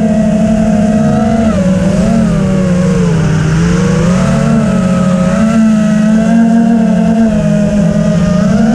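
FPV quadcopter's motors and propellers whining steadily, the pitch sagging to a low point about three seconds in and rising again, with a rumble underneath.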